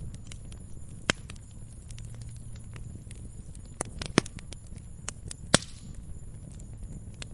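Fire crackling: a steady scatter of small clicks and snaps over a low rumble, with a few sharp louder pops, the loudest about five and a half seconds in.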